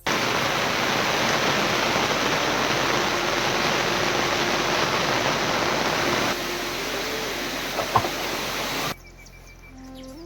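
Heavy rain pouring down in a steady, dense hiss that cuts off suddenly about nine seconds in. A single sharp click comes just before the cut. Near the end, quieter steady tones step up in pitch.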